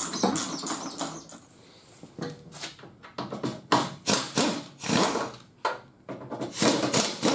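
A ratchet clicking in quick, even strokes while loosening a door-handle bolt. After a short pause, a handheld pneumatic tool runs in repeated short trigger bursts of buzzing and air hiss as the bolt is spun out.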